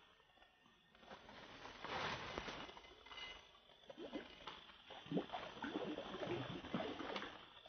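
Water splashing and sloshing as a hooked fish struggles at the surface of a flooded river while the angler holds the rod and reels in, with irregular splashes building about a second in and continuing through the second half.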